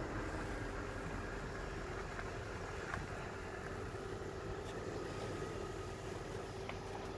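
Steady low vehicle rumble with a faint steady hum and a few light ticks.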